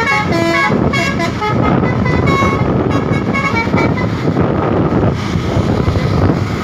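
Garbage truck's telolet musical horn playing a quick run of short, changing tones in the first second and a half and a few more around two to three seconds in, over the steady rumble of the truck driving.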